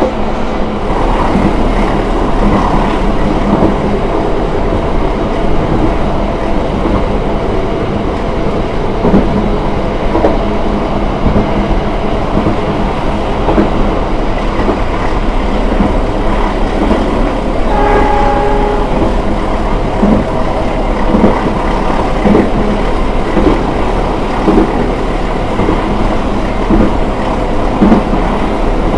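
KA Taksaka passenger train running along the track: a steady rumble with wheels clicking over the rail joints. A short pitched tone sounds once, about eighteen seconds in.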